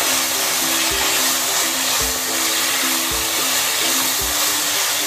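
Kidney beans in tomato gravy sizzling in a hot pan as they are stirred in, a steady hiss, under background music with a simple melody and a soft beat about once a second.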